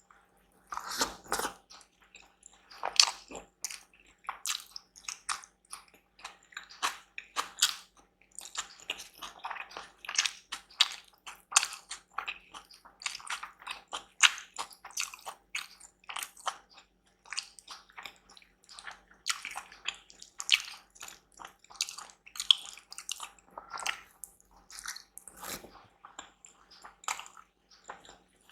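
Close-miked eating: chewing with many wet mouth clicks and smacks coming irregularly several times a second, and a few louder bites.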